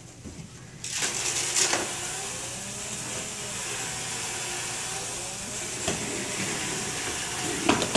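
A steady, loud hiss like rushing air starts about a second in and holds, with a few light knocks over it.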